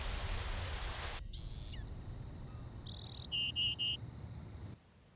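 A steady rushing noise cuts off about a second in. Then comes a run of high bird and insect chirps: a falling sweep, a quick trill, a short whistle and three short repeated notes, fading out near the end.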